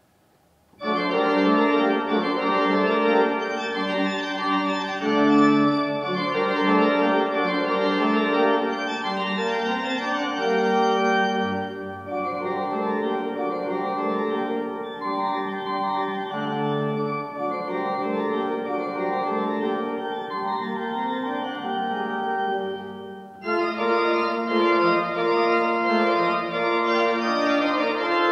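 Hill pipe organ starting up about a second in and playing sustained chords, with occasional deep pedal notes beneath. Near the end the sound drops away briefly, then a fresh loud chord comes in.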